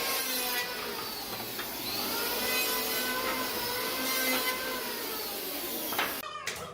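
Electric power tool motor running on wood, its pitch sagging and rising as the load changes, then cutting off about six seconds in, followed by a few clicks.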